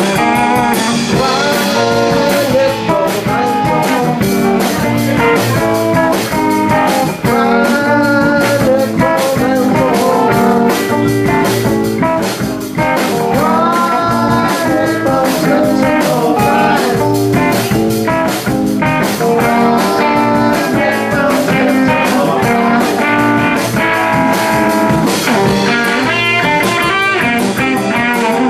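Live blues-rock band playing: electric guitars over bass guitar and a drum kit.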